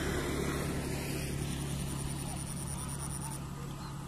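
Steady low drone of an engine running, with a thin high whine through the middle.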